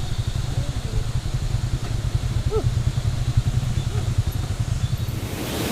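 Motorcycle engine running at low speed, a steady low rumble as the bike rolls into a parking area.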